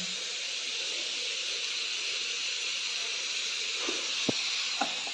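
Steady hiss of potato pieces sizzling in a frying pan on a gas stove, with a few light clicks and taps of handling near the end.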